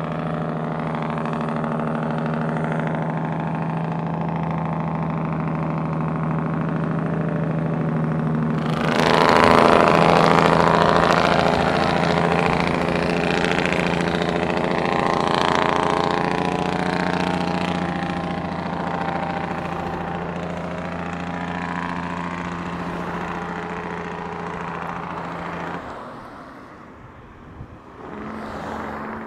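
Heavy truck's diesel engine running steadily. About nine seconds in, a louder, noisier engine sound comes in and fades over the next ten seconds or so. Near the end the sound drops off briefly before an engine note returns.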